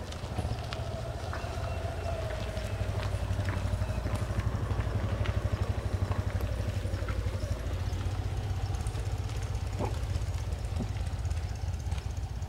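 Steady low rumble of an engine running, with a faint droning tone sliding slowly lower and a few faint ticks.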